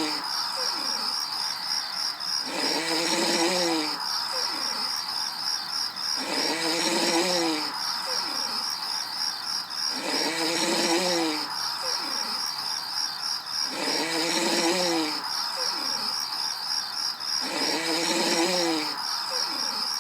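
Soundtrack of Gulli's overnight sleeping-logo screen: a cartoon snore that repeats about every four seconds, over steady cricket chirping.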